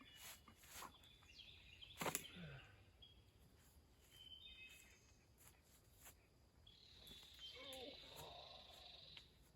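Faint woodland ambience with scattered clicks, one sharper click about two seconds in, short high chirps, and a steady high-pitched call lasting a couple of seconds near the end, typical of birds or insects.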